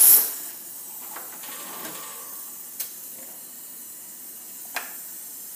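Liquid oxygen portable coming off its reservoir's fill connector, with a loud hiss of escaping oxygen that dies away within the first half second. Then a steady faint hiss of oxygen venting from the portable's vent valve, which has frozen open, broken by two sharp clicks.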